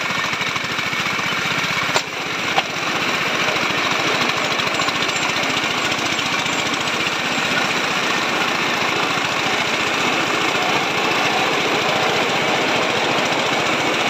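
Small engine of an open-sided passenger cart running steadily while the cart is under way, with two sharp knocks about two seconds in.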